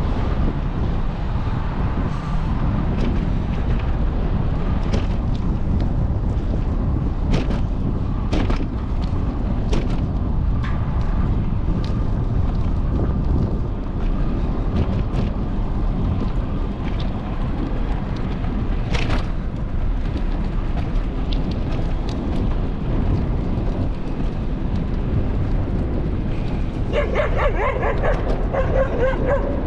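Steady wind and road rumble from travelling along a road, with scattered clicks. Near the end a dog barks in a quick series of barks for a couple of seconds.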